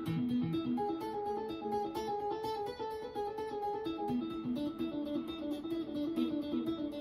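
Electric guitar played as a quick run of single picked notes through a delay set for one slapback repeat, so each note is answered by a single echo and new notes are played in between the repeats.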